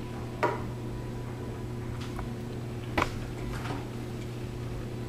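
Two short knocks of a printed circuit board being handled on a wooden table, about two and a half seconds apart, over a steady low hum.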